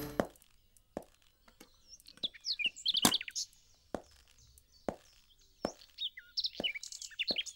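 Small birds chirping, with a series of sharp clicks a little under a second apart. The strongest click comes about three seconds in.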